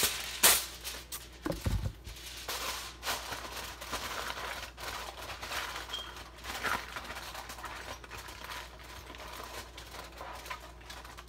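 Aluminium foil crinkling and rustling in irregular strokes as it is handled and pressed down over a baking pan, with a loud sharp crackle about half a second in and a dull thump shortly after.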